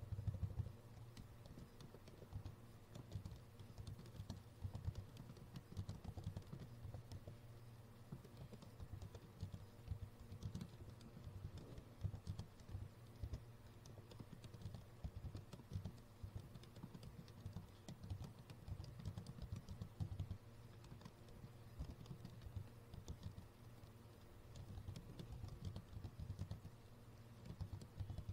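Typing on a computer keyboard: a continuous, irregular run of faint key clicks.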